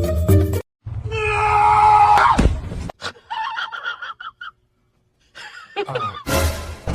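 A loud, drawn-out scream lasting about two seconds, which cuts off abruptly. Shorter cries follow, and near the end comes a burst of noisier, voice-like sound.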